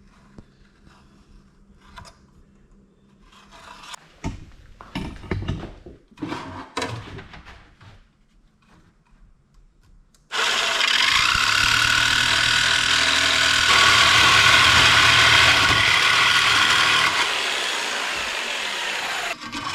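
A few knocks and clatter of parts being handled, then about ten seconds in a jigsaw starts suddenly and cuts steadily through clamped, overlapped aluminum sheet for about nine seconds. It eases off slightly near the end before stopping.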